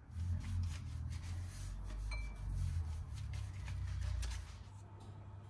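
Wooden rolling pin rolling out puff pastry on a countertop: a low rumble with scattered light taps, fading out about four and a half seconds in.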